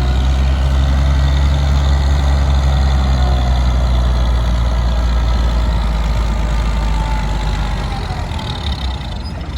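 1950 Oliver 77 tractor's six-cylinder engine running steadily close by, a low, even engine note that fades away over the last couple of seconds as it moves off.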